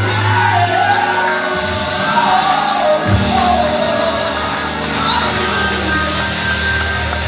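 Gospel singing: a voice carrying a wavering melody over sustained low instrumental accompaniment, with some shouts from the congregation.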